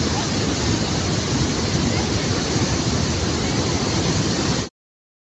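Waterfall rushing: a steady, loud roar of falling water that cuts off suddenly near the end.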